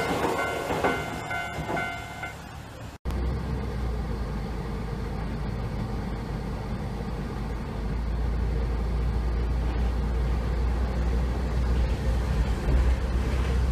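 Railway level-crossing alarm ringing as a Hankai tram clears the crossing, stopping about two seconds in. After a cut, a steady low rumble of outdoor background noise.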